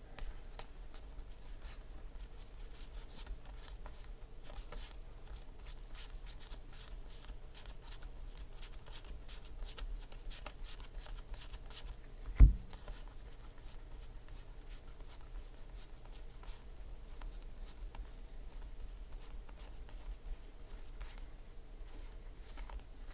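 Stack of football trading cards being flipped through by hand, the card edges giving faint, repeated ticks and slides over a low steady hum. One low thump about twelve seconds in is the loudest sound.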